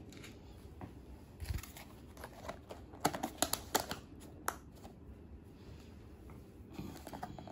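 A clear plastic lid is pressed down onto a plastic tub and snaps into place. It makes a quick run of sharp plastic clicks about three seconds in, then one more click, with fainter clicks near the end.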